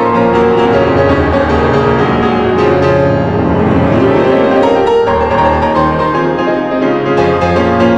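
Background music led by piano, with held notes over a low bass line.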